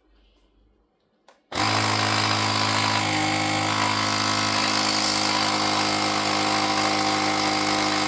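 Portable cordless tyre inflator's electric air compressor switching on abruptly about a second and a half in and running steadily with a loud, even mechanical hum, then stopping at the end.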